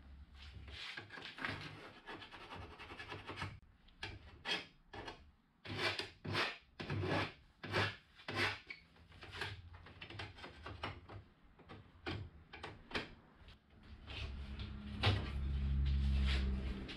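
Hand file scraping along the edge of an aluminium angle bar in runs of quick strokes with short pauses. Near the end comes a louder low steady sound with a single knock.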